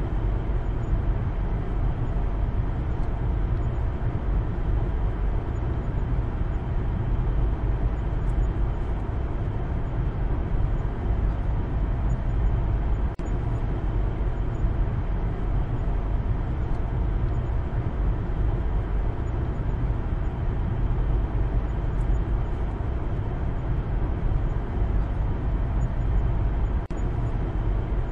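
Steady low rumble of road and engine noise inside the cabin of a moving Maruti Suzuki Baleno.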